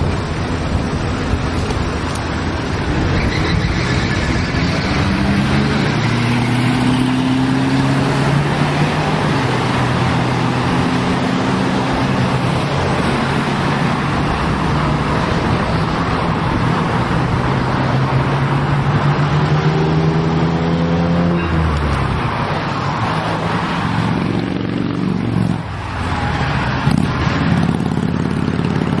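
Road traffic: passing car and truck engines running over steady tyre and road noise, their hum rising and falling in pitch as vehicles go by.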